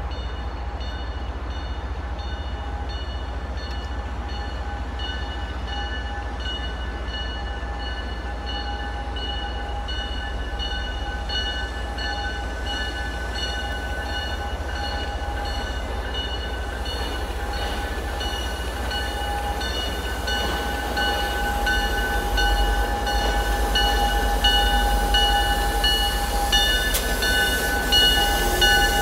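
MBTA commuter train's diesel locomotives approaching through the rail yard: a low rumble with several steady high-pitched tones above it, getting louder over the last several seconds as the train comes close.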